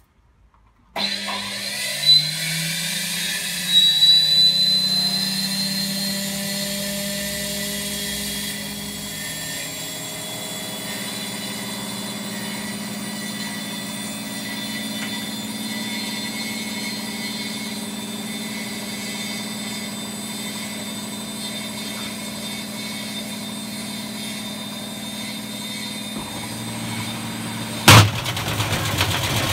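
Indesit W133 front-loading washing machine loaded with two bricks: its motor starts about a second in, rising in pitch, then runs steadily as the drum turns, with two knocks in the first few seconds. Near the end there is a single sharp bang, after which the noise grows louder and rougher.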